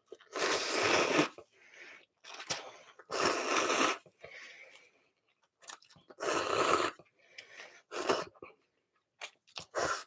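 A person eating cup noodles with curry broth, slurping them up in five loud, airy slurps of up to a second each, about every two seconds, with faint chewing between.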